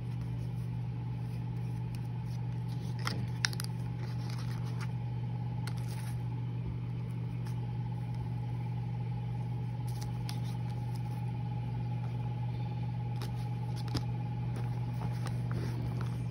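A steady low hum with a faint, steady higher whine above it, from an unseen running appliance. Over it come scattered light clicks and rustles of card and paper packaging being handled, with two sharper clicks.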